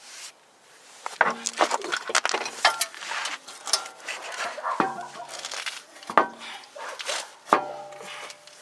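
Repeated metallic clanks and clinks, several ringing briefly after each hit, as metal parts or tools are handled and knocked together.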